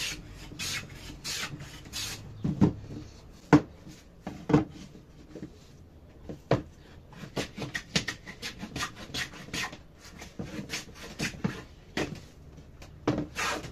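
Metal bench plane shaving pine boards by hand: a rasping swish with each stroke, repeated many times and quicker in the second half. A few sharp wooden knocks stand out in the first half, louder than the strokes. The planing is cleaning up the pine pieces before they are assembled.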